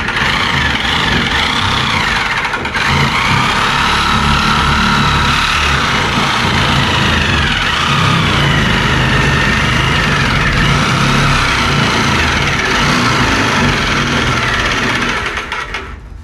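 Handheld electric sheet-metal shear (a Chicago Electric) cutting through thin steel floor pan. Its motor whine wavers up and down in pitch as the load changes while it chews through the metal. It stops about a second before the end, when the cut runs into a brace.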